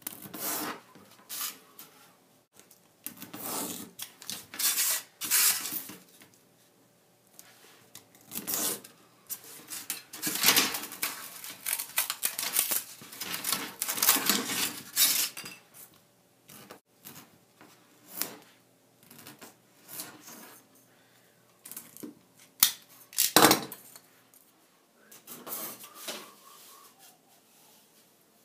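Utility knife slicing through foam board along a steel ruler: a series of scratchy cutting strokes, each a second or two long, with pauses between them. One sharp knock late on is the loudest sound.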